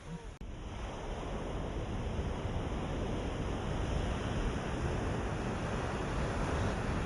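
Ocean waves washing on a shore as a steady surf. The sound cuts out for an instant near the start, then swells a little louder toward the middle.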